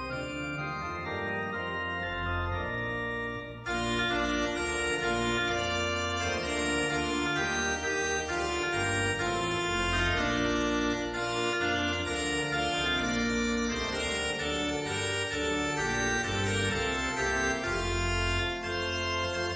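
Background music of held, organ-like chords that change every second or two and grow fuller about three and a half seconds in.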